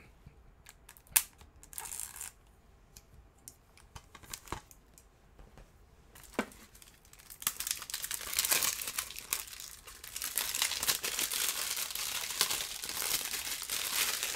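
Clear plastic shrink-wrap being opened and peeled off a Blu-ray case: a few scattered clicks and taps at first, then continuous crinkling and tearing of the film from about seven seconds in.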